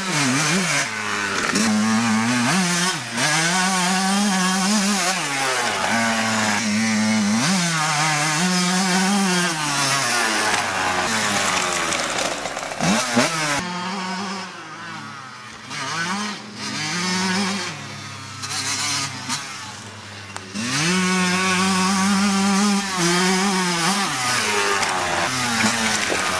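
Kawasaki KX80's two-stroke single-cylinder engine revving hard as the dirt bike is ridden, its pitch climbing through each gear and dropping at the shifts. It grows quieter in the middle as the bike moves away, then comes back loud as it passes near.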